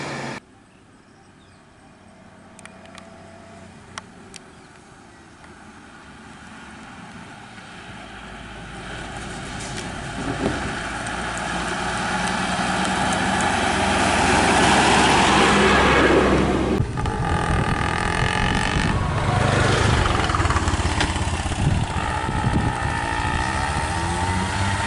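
Bus engine running, growing steadily louder as the bus comes up the road. After a sudden change, another vehicle's engine runs with its pitch rising and falling.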